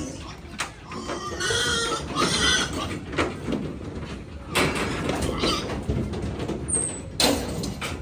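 Pigs squealing in several bursts, the longest and most tonal about one and a half seconds in.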